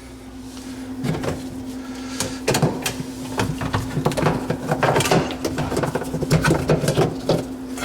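Plastic dishwasher parts being handled inside the tub: a run of irregular clicks and knocks, over a steady low hum.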